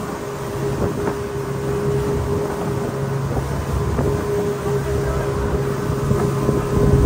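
Speedboat engine running at a steady pitch while under way, with water rushing past the hull and wind buffeting the microphone.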